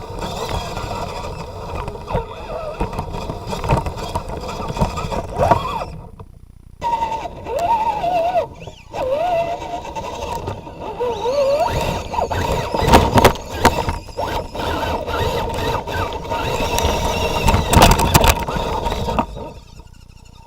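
Scale RC crawler truck's electric motor and drivetrain whining, the pitch rising and falling with throttle, over rumbling, scraping and knocking from the truck working over rough ground. The motor cuts out briefly a few times.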